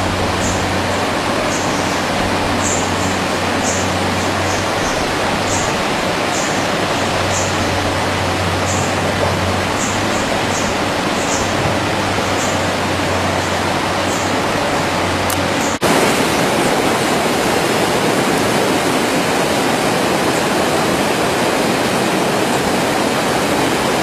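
Steady loud rushing noise, with a low hum and short high chirps underneath for the first two-thirds. About 16 s in the sound changes abruptly, and the rushing goes on without them.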